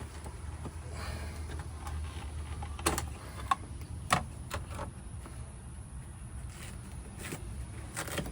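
A few sharp clicks and knocks over a low steady hum, from car interior trim and dash parts being handled and pulled loose.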